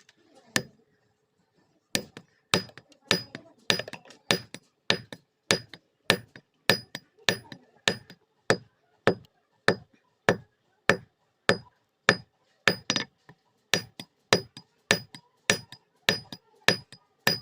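Blacksmith's hand hammer striking iron on an anvil in forging, a steady run of blows about two a second, each with a short metallic ring, starting about two seconds in after a single blow.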